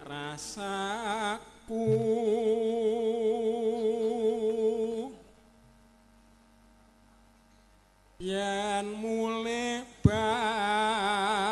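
A man singing a solo Javanese bawa, an unaccompanied vocal introduction, in long, slow held notes with a wide wavering vibrato. He breaks off for about three seconds in the middle, then resumes.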